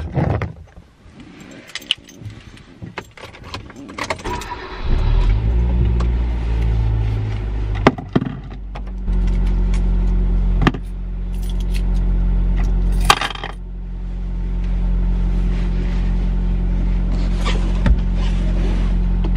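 Car keys jangling and small clicks, then a car engine starting about four or five seconds in and idling steadily, with a few sharp clicks over the idle.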